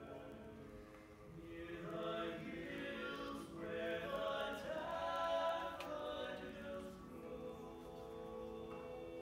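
A mixed a cappella vocal group singing in harmony, growing louder in the middle of the passage.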